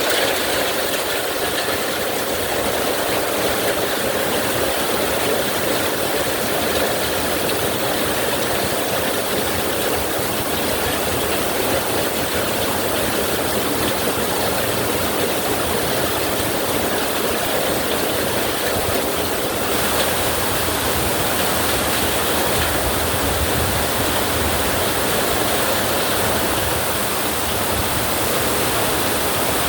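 Heavy rain falling steadily: a loud, dense, even hiss with no thunder claps.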